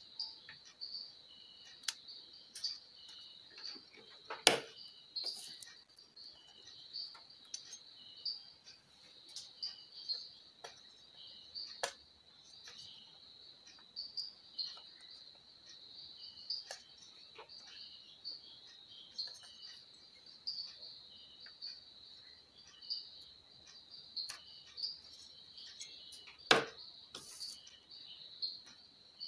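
Insect chirping in a steady, high, pulsing trill, with a few scattered sharp clicks and taps, the loudest about four seconds in and near the end.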